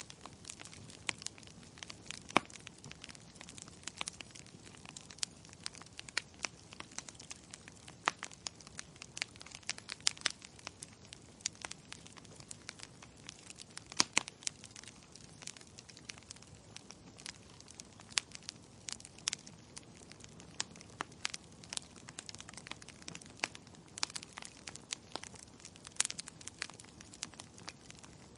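Logs burning in a fireplace, crackling with frequent irregular pops over a soft, steady hiss of the flames; a few pops stand out louder.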